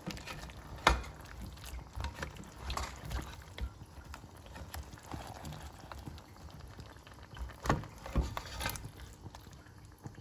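A spatula stirring chunks of vegetable stew in a pot with a little hot water, bubbling softly, with scattered knocks and scrapes of the spatula against the pot, the sharpest about a second in and a few more near the end.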